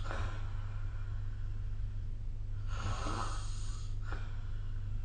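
A person snoring in sleep: one rasping snore breath a little past halfway, lasting about a second, over a steady low hum.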